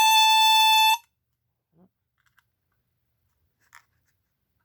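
Portable burglar and fire alarm's horn going off: one loud, steady, shrill tone for about a second that cuts off suddenly, followed by a couple of faint clicks.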